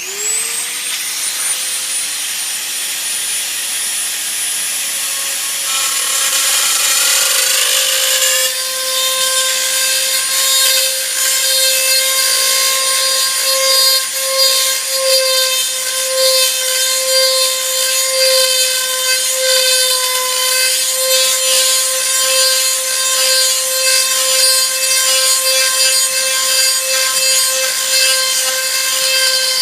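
Electric drill spinning up with a rising whine, then running steadily as the bit enlarges a hole in a rocket airframe, with rougher cutting noise for a couple of seconds partway through.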